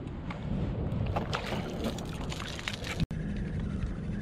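Wind noise on the microphone over water sloshing, with scattered splashes in the middle; about three seconds in the sound cuts briefly and a steadier low hum takes over.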